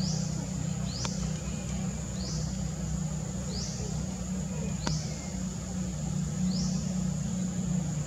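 Insects droning in forest: a steady high whine broken by a falling sweep about every second, over a steady low rumble, with two faint clicks.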